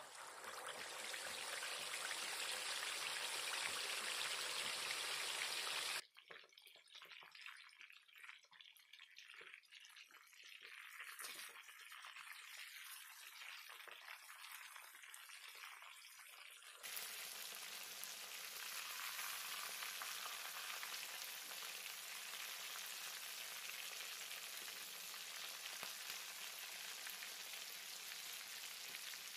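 Whole marinated chicken deep-frying in hot oil, sizzling steadily. About six seconds in it drops to a quieter crackle, and it returns to a full sizzle about ten seconds later.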